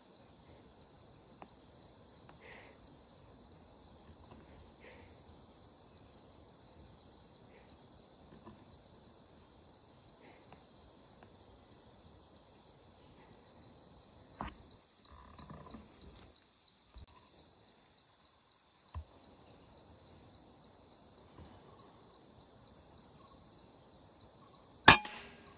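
Steady high-pitched insect chorus, with a single sharp rifle shot near the end.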